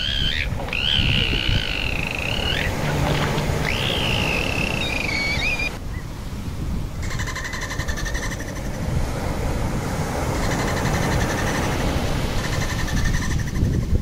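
Dolphins calling underwater: three wavering whistles in the first half, then a long run of rapid, buzzy pulsed calls, over a steady underwater hiss.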